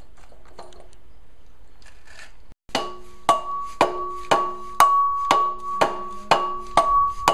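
A mallet beating on a Mercruiser 3.0 engine's flywheel, about ten blows at two a second starting near three seconds in, to knock it loose from the crankshaft studs. A steady ringing tone holds under the blows.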